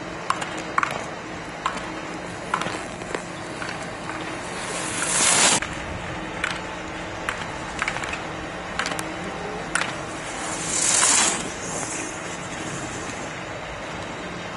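Skis scraping across hard-packed snow in two hissing swells of about a second each, with scattered sharp clicks in between.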